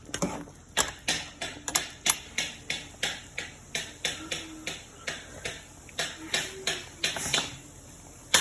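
Rhythmic food-preparation strikes in a kitchen, a steady run of sharp knocks at about three a second, like chopping or pounding ingredients for a curry. They pause briefly near the end.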